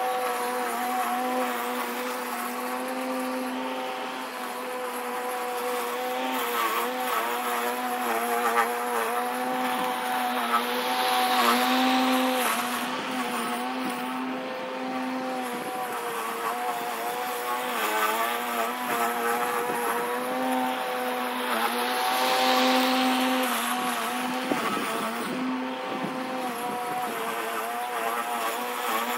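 Craftsman push mower converted to electric, its motor spinning the blade through tall grass: a steady electric whine whose pitch wavers and dips slightly as the blade meets thicker patches. It keeps running without bogging down much, though it cuts poorly, and rustling hiss swells up twice, about eleven and twenty-two seconds in.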